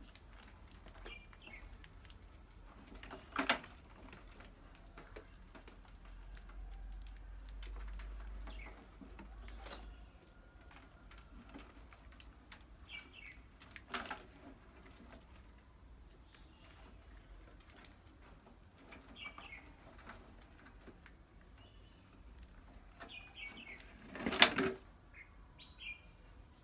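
Mice scrabbling about inside a wire-mesh cage trap, with faint short squeaks and a few sharp knocks against the wire and glass jar. The loudest knocks come near the end, as the red plastic ball rolls down the mesh ramp and lands on the jar's mouth.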